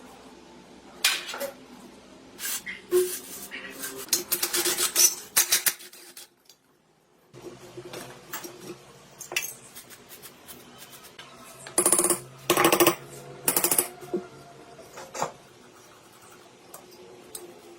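Metallic clinking and clattering in short bursts, as of metal parts or tools being handled and knocked together, with a brief gap of near silence about six seconds in.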